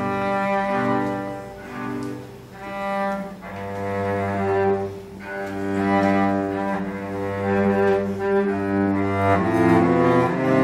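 A cello quartet playing bowed, sustained notes in several parts at once. A low note is held under the upper parts from about three and a half seconds in, and the chords change near the end.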